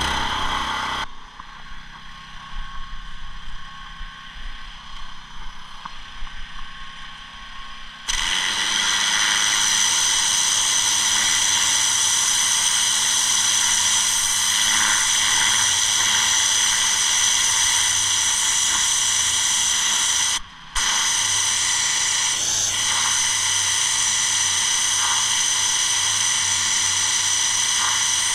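Petrol pressure washer with a Honda GX390 engine, heard running just after starting. From about eight seconds in, the turbo lance sprays block paving: a loud, steady hiss of the water jet over the engine's drone, which drops out briefly about two-thirds of the way through.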